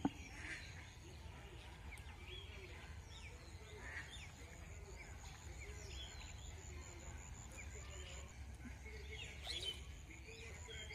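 Faint outdoor ambience: birds chirping now and then over a low steady rumble.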